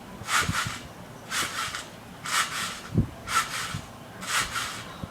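Backyard trampoline being bounced on in a steady rhythm about once a second, each bounce giving a short rasping creak from the springs and mat, with an occasional low thud.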